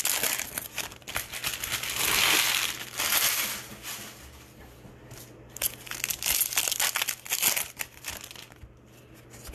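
Shiny baseball-card pack wrapper crinkling and crumpling loudly as it is opened, then a stack of cards being handled and flipped with quick light clicks.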